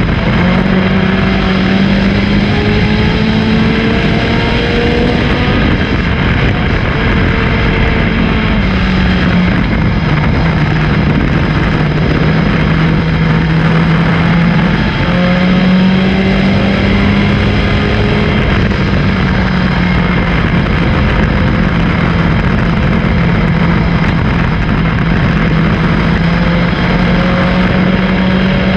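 Race car engine at race pace, heard loud and close from an onboard camera, its note rising and falling every several seconds as the car accelerates and lifts around the track.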